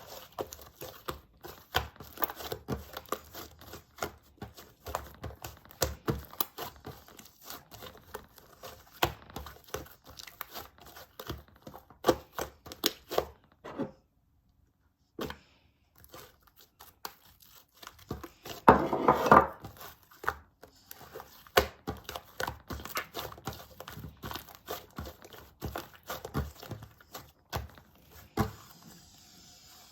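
Hands kneading and stretching slime, making a steady stream of small sticky clicks and crackles as red and blue colouring is worked in. The sound drops out for about a second and a half near the middle, and a louder, denser burst of crackling comes about two-thirds of the way through.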